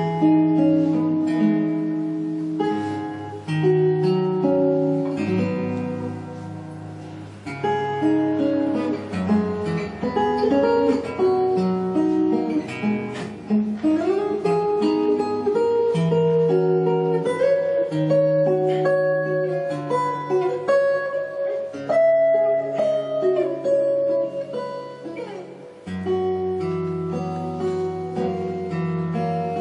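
Solo acoustic guitar played fingerstyle, a plucked melody over held bass notes. It comes in loudly right at the start.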